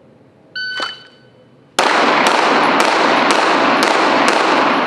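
Shot timer's start beep about half a second in. About a second later come six rapid 9mm pistol shots, roughly half a second apart, each ringing on in the reverberation of an indoor range.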